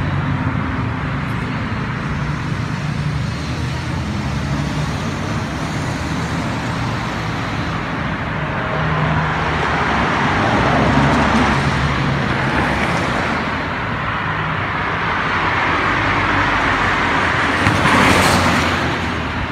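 Street traffic: cars passing on the road, their tyre and engine noise swelling as they go by, loudest about ten seconds in and again near the end.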